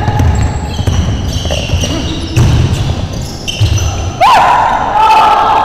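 Basketball play on a court: the ball thumping as it is dribbled, with short high-pitched squeals over it and a sharp knock about four seconds in.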